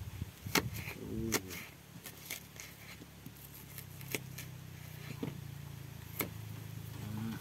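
Kitchen knife slicing an onion against the bottom of an earthenware bowl: a handful of sharp clicks, spread a second or so apart, over a low steady hum.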